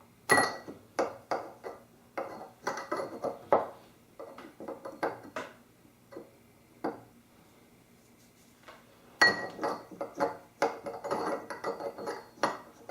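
Metal faucet handles and parts clinking and knocking with short ringing pings as they are fitted back onto a Moen two-handle kitchen faucet. The clatter comes in two busy spells with a quieter pause of about two seconds in the middle.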